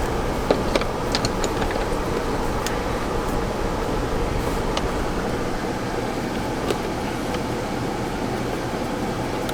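Steady fan-like blower noise, with a few light clicks and taps of small parts being handled.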